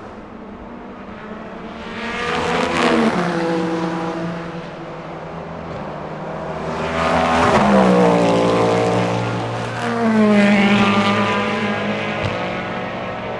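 Race cars passing at speed, including the Cadillac V-Series.R's 5.5-litre V8. There are three loud passes, and the engine pitch falls as each car goes by.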